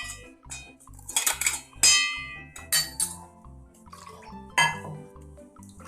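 A metal spoon clinking and knocking against a dish or mixer jar, about five ringing strikes, while ground dried-prawn powder is added. Soft background music runs underneath.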